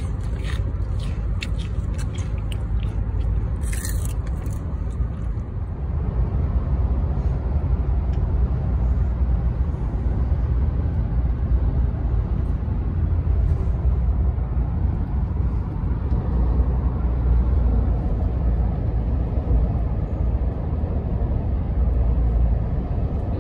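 Steady low rumble of a moving car heard from inside the cabin, with a few light clicks and rustles in the first few seconds.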